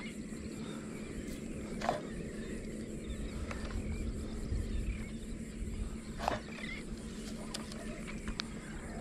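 Popping cork jerked across the water's surface: two brief pops about four seconds apart over a steady low hum.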